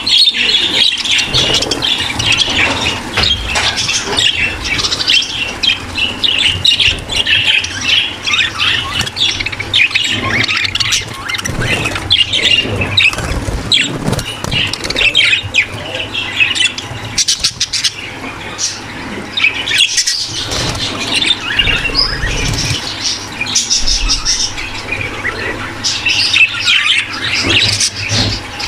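A flock of budgerigars in a breeding aviary chattering, warbling and squawking without pause, many birds at once in a dense mix of short high chirps. This is the courtship chatter of budgies in breeding condition.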